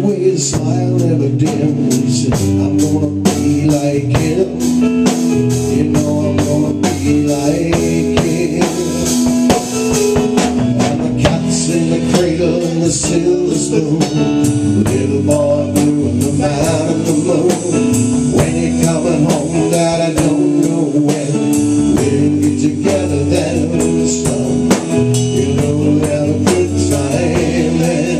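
Live band music: a man singing over a Korg electric keyboard and a Sonor acoustic drum kit, drums keeping a steady beat.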